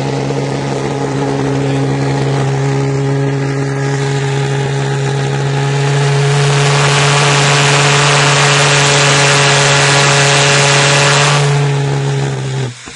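Small pulse jet engine running with a loud, steady buzzing drone at one low pitch with overtones. A rushing hiss builds about halfway through and eases off again, and the engine cuts out abruptly near the end.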